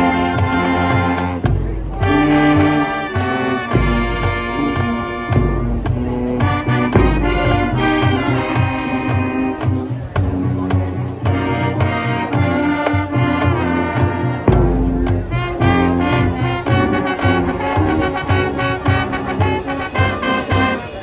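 Marching band playing a loud, brass-led passage of held chords over a heavy low end.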